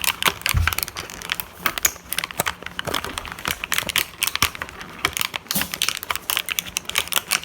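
Plastic packaging and small plastic toy parts being handled and unwrapped: crinkling with a rapid, irregular run of sharp clicks and taps.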